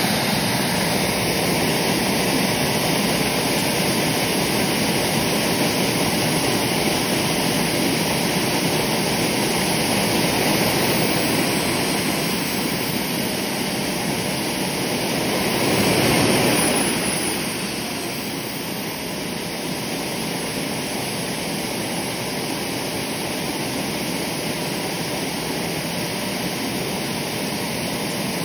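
KJ66 model jet turbine running steadily: a dense rushing noise with a faint high whine. About halfway through it swells louder, the whine rising and falling, then it settles back a little quieter.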